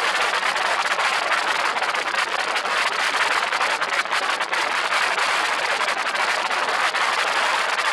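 Steady rushing airflow noise in an open-cockpit float-equipped ultralight aircraft in flight, the wind striking the exposed microphone.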